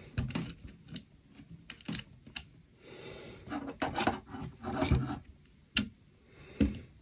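Babacom folding aluminium laptop stand being adjusted by hand: a series of sharp metal clicks and knocks as the hinged support arm and legs are moved between the height notches, with a few short scrapes of metal rubbing.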